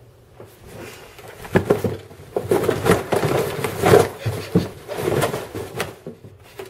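Scuffling commotion of a person scrambling over a cloth-covered table and tumbling to the floor with a cardboard pizza box: a run of thumps and knocks with rustling, busiest in the middle and dying away near the end.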